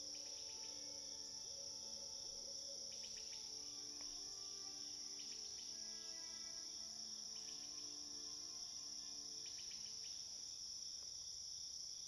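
Crickets chirping in a steady, high-pitched chorus, with soft sustained musical notes underneath and a few short chirps now and then.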